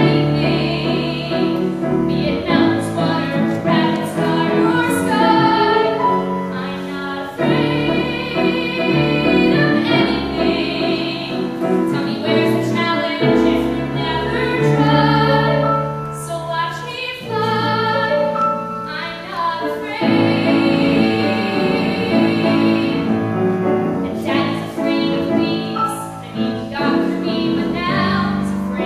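A young woman singing a musical-theatre song solo with piano accompaniment, her voice wavering with vibrato on the held notes.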